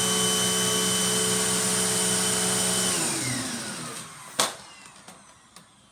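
Upright vacuum cleaner running steadily, then switched off about three seconds in, its motor whine falling in pitch as it winds down. About a second later comes one sharp knock, followed by a few light clicks.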